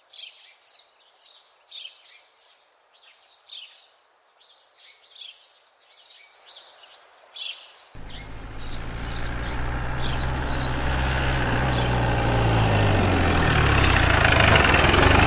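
Birds chirping in short, quick repeated calls. About halfway through, a jeep engine comes in and grows steadily louder as the vehicle approaches, its pitch falling near the end as it slows.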